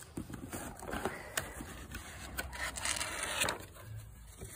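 A dog nosing into an opened cardboard gift box: cardboard scraping and rubbing with scattered clicks and rustling of the wrapped contents, busiest about two and a half to three and a half seconds in.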